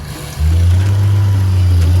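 An engine running steadily, coming in loud and low about half a second in.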